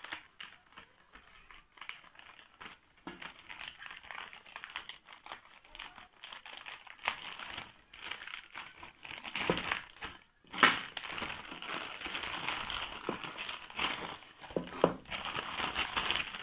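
Plastic courier mailer bag crinkling and rustling as it is cut open with scissors and handled to get the box out, with one sharp, loud crackle about ten seconds in.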